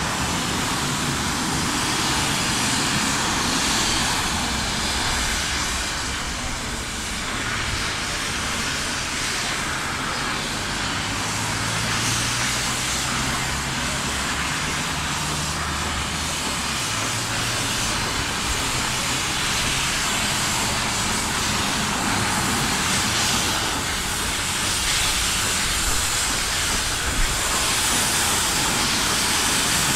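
Small 0-4-0 saddle-tank steam locomotive hissing steadily, steam blowing from its open cylinder drain cocks as it starts its train and pulls away.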